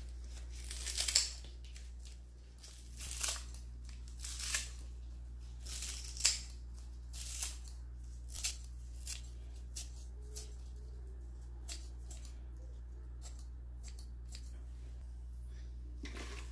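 Kitchen scissors snipping through a bunch of pandan leaves, short sharp cuts about one a second, the cuts getting fainter and fewer after about ten seconds. A steady low hum runs underneath.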